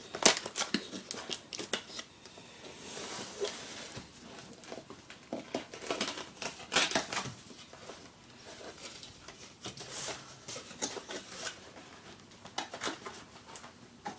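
Netbook packaging being handled and opened by hand: irregular clicks, rustles and crinkles of cardboard and plastic wrapping.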